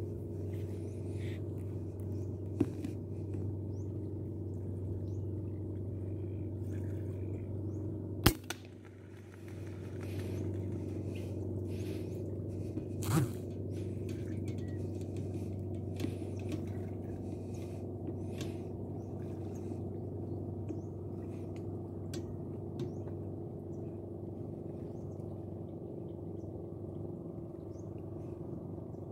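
A steady low hum with faint chirps and ticks over it. About eight seconds in comes a single sharp crack, the loudest sound, an air rifle firing, after which the hum briefly drops away; a weaker burst follows about five seconds later.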